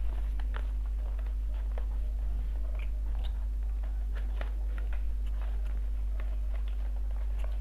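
Small cardboard box being handled and pried open by hand: scattered light clicks, scratches and crinkles at irregular intervals, over a steady low hum.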